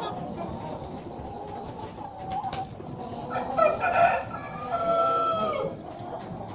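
Broiler breeder chickens clucking and calling, with a louder cluster of calls a little past halfway, then one rooster crow held for about a second.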